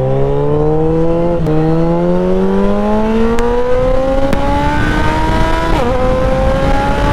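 Gen 3 Suzuki Hayabusa's 1340 cc inline-four engine accelerating, its pitch climbing steadily. It drops briefly at an upshift about a second and a half in and at another near six seconds, then holds level, over wind rush on the microphone.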